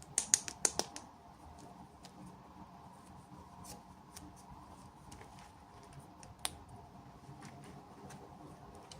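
Small plastic pieces and packaging being handled: a quick run of sharp clicks and snaps near the start, then scattered light ticks and one more sharp click later on.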